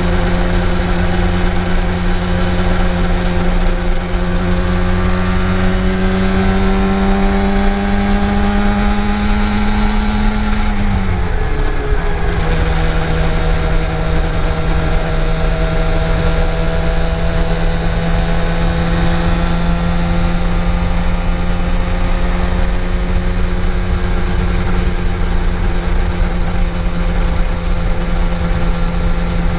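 Yamaha TDR250's two-stroke parallel-twin engine running while the bike is ridden. The engine note rises slowly for about ten seconds, drops sharply about eleven seconds in, then holds steady.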